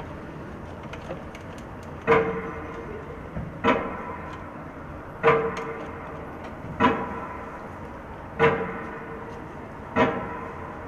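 A pitched chime struck slowly and evenly, six strikes about one and a half seconds apart starting about two seconds in, each ringing briefly on the same note and fading.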